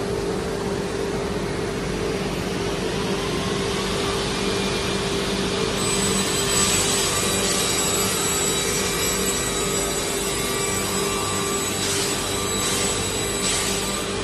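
CNC vertical panel saw running a vertical cut through a board: a steady motor hum, joined about six seconds in by a high whine and hiss as the saw blade cuts, with a few short louder rushes near the end.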